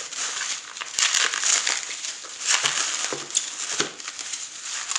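Plastic bubble wrap crinkling and rustling as it is pulled off a small box by hand, with scattered sharp crackles.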